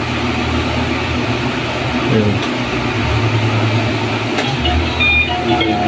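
A steady machine hum with a hiss over it, with a short spoken word about two seconds in.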